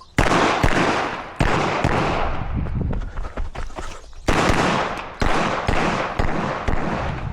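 A string of pistol shots fired on a timed stage, each with a short echoing tail. They come in two groups: a few quick shots at the start, then a gap of almost three seconds, then several more.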